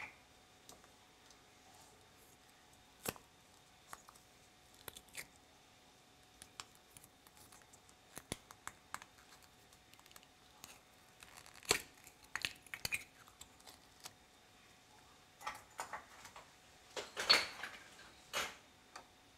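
Hands handling pieces of slime and a small plastic slime tub over a glass dish: scattered soft clicks and taps, coming in denser clusters about twelve seconds in and again around fifteen to eighteen seconds in.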